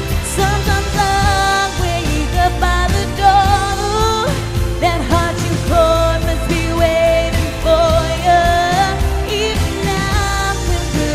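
A woman singing a pop ballad live over backing music with bass and drums, holding long notes with vibrato.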